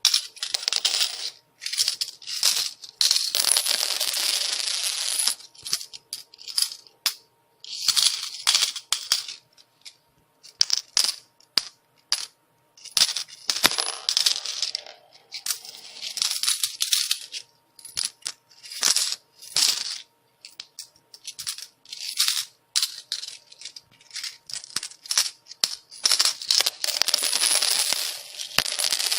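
Metal coins dropping and jingling onto a hard surface. The sound comes in repeated bursts: single clinks and pattering runs, and longer cascades of a second or two, with brief silences between them.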